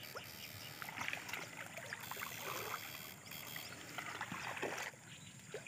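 Faint splashing and rustling of someone wading through shallow water and dense water plants, with scattered small ticks and a soft swish of water.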